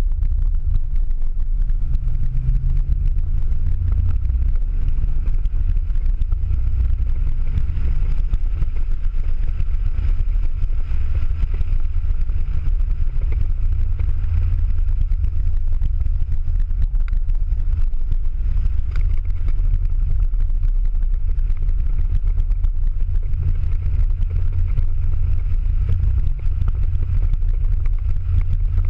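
Ford Mustang engine and tyres on a wet track, heard inside the cabin at speed: a steady, loud, low drone, with the engine pitch shifting a little in the first few seconds.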